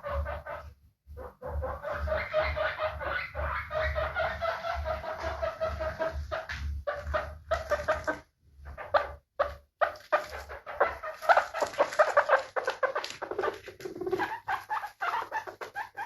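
Guinea pig vocalising in long runs of rapid, short calls, broken by brief pauses in the second half.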